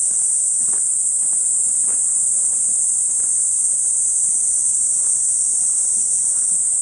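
A chorus of cicadas calling in a steady, loud, high-pitched drone, with faint footsteps on the path underneath.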